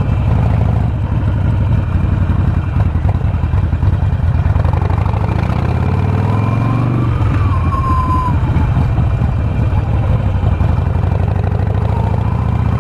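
Harley-Davidson Sportster Forty-Eight's air-cooled V-twin engine running under way through low gears; its pitch climbs as it accelerates from about four seconds in, then drops suddenly about seven seconds in at a gear change.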